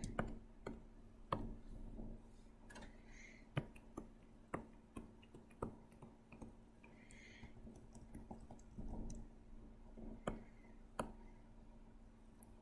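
Irregular sharp clicks from a pen tablet and mouse in use, about a dozen spread unevenly, over a faint steady hum.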